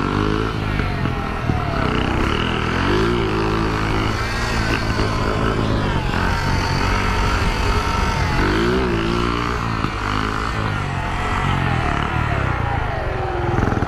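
Small Shineray 49cc motorcycle engine running while ridden, its pitch rising and falling with the throttle several times. It has a strange engine noise, which a friend puts down to a worn clutch, though the clutch is not slipping.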